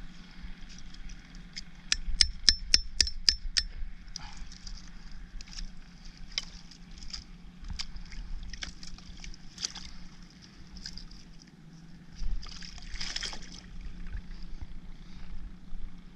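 Hammer knocking on a clump of oyster shells, a quick run of about eight sharp knocks around four a second, followed by scattered clicks of shell and a brief splash of water.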